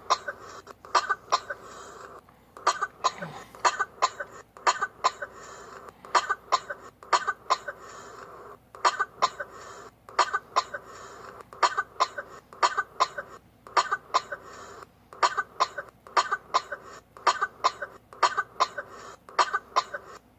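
A long coughing fit: short, sharp coughs come in rapid runs of several at a time, broken by brief pauses every few seconds, and keep on going.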